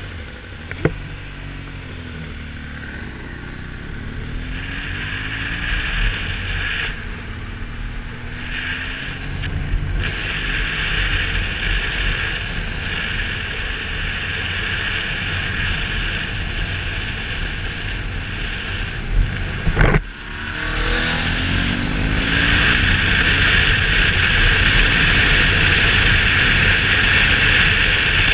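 BMW R1200GS boxer-twin engine under way, its pitch rising again and again as it pulls through the gears, with wind rushing past a helmet-mounted camera. Two sharp clicks, one about a second in and one near twenty seconds in.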